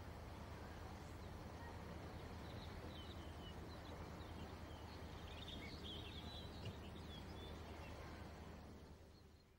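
Faint outdoor ambience: a steady low hum and background noise with scattered high bird chirps through the middle, fading out near the end.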